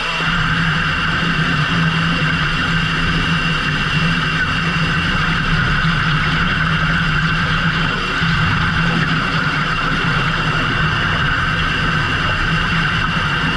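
Fishing boat's engine running steadily, a constant drone with a hum and a higher whine that do not change.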